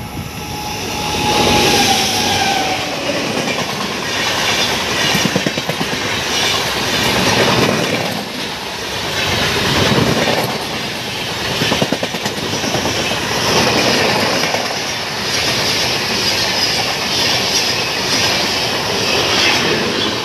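Express train hauled by a WAG-9HC and WAP-7 electric locomotive pair passing close by at speed. The rumble and rush of wheels on rail build up over the first two seconds as the locomotives arrive. The coaches then run past in a loud, steady clickety-clack that swells and dips roughly every two seconds.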